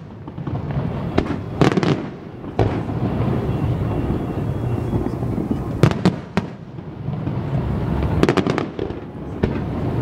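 Distant aerial fireworks shells bursting: sharp bangs, some in quick clusters, come about a second in, near the middle and toward the end, with a steady low rumble of echoing booms between them.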